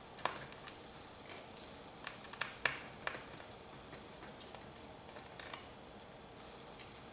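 Small Phillips screwdriver working the tiny screws out of a laptop's LCD panel mounting: scattered light clicks and ticks, about a dozen, irregularly spaced.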